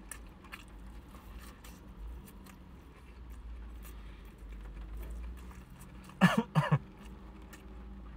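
Soft chewing and light clicks of chopsticks on a plastic bento tray. Two short coughs about six seconds in are the loudest sound.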